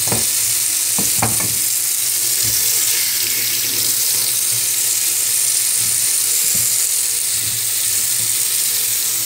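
Water running steadily from a kitchen tap into a stainless-steel sink while things are rinsed under it, with a couple of light knocks near the start and about a second in.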